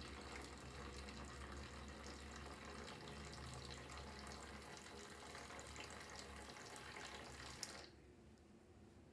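Small submersible water pump running with a low hum while water pours into a plastic jug. About seven and a half seconds in, a single click and the pump and water sound stop abruptly: the level controller's relay switching the pump off as the jug reaches its full mark.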